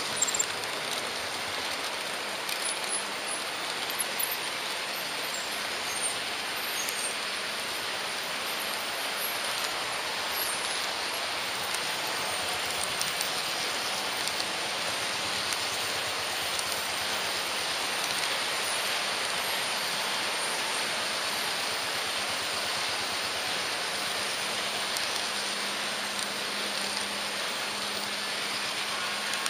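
H0-scale model train running, heard from a camera riding on its front: a steady rattling hiss of wheels rolling on the track, with small clicks over rail joints and points.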